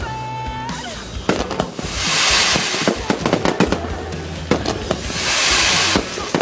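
Fireworks display: a rapid run of bangs and pops, with two long swells of hissing crackle about two and five seconds in. A short steady whistle sounds at the very start.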